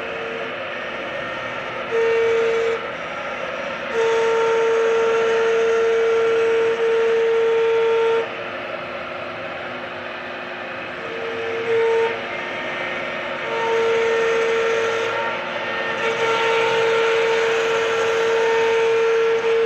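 CNC router spindle machining a wood panel: a steady high whine with overtones that grows loud in stretches of one to four seconds as the tool cuts, over the constant noise of the running machine.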